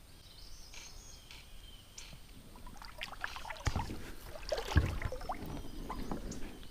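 Water sloshing and hollow knocks against a kayak's hull, starting about halfway in, with two louder thumps close together.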